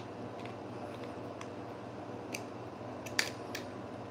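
Steel pliers clicking and scraping on the bent metal mounting tab of a fluorescent lamp ballast as the tab is straightened: a few sharp clicks, the loudest about three seconds in.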